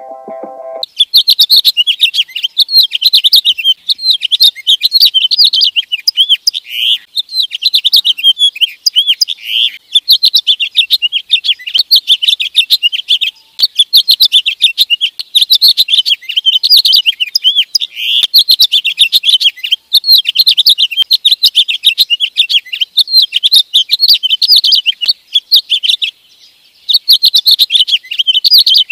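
House finch singing a long, fast, rambling warble of high notes, almost without break, with one short pause near the end. A snatch of intro music stops within the first second.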